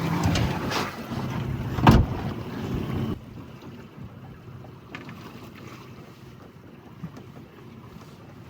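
Wind on the microphone and sea noise on a boat, with a single knock about two seconds in. About three seconds in the sound drops suddenly to a quieter, even hiss of wind and water.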